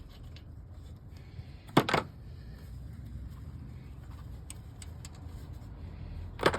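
Two sharp metallic clanks of hand tools or parts knocking against metal, a double one about two seconds in and a single one near the end, over a steady low hum.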